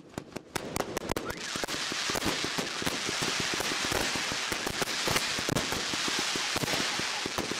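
A cache of illegal fireworks going off on the ground: a rapid string of firecracker cracks, then from about a second and a half in a steady rushing hiss of burning fireworks, with dense crackling throughout.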